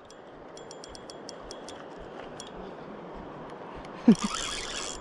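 Spinning reel being cranked to bring in a hooked king salmon: about four seconds in, the rotor whirs and a short squeak falls sharply in pitch, over a steady rush of river water. A quick run of light ticks comes in the first two seconds.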